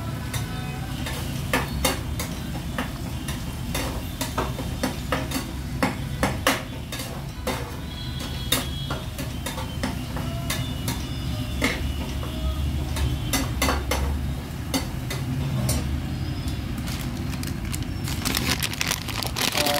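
Steel spatula stirring and scraping a frying onion, tomato and green chilli masala in a small steel pan, with repeated clinks of metal on metal over a steady sizzle.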